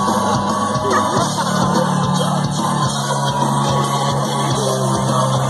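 Loud music with singing over held bass notes, played for dancing.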